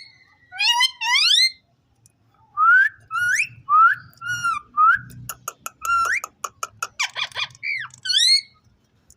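Indian ringneck parakeet whistling: a string of short, rising whistled notes in phrases, with a run of rapid chattering clicks in the later half.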